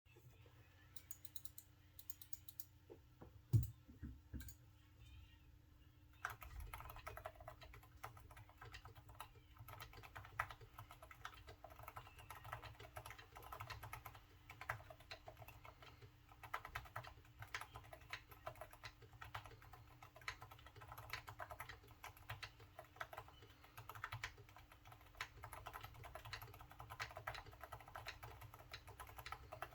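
Typing on an AKKO Mod004 mechanical keyboard with Kailh silent Box Brown switches: quiet, damped key presses. A few scattered taps and a single thump come first, then quick, continuous typing from about six seconds in.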